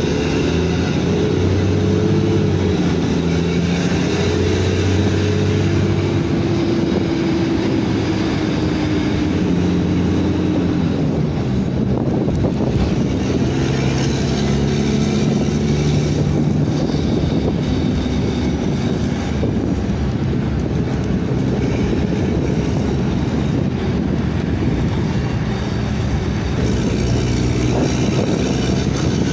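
Cummins ISBe 6.7 straight-six diesel of an Agrale MT15 city bus, fitted with a free-flow exhaust, running under way and heard from inside the cabin. The engine note rises and falls a few times as the bus accelerates and eases off.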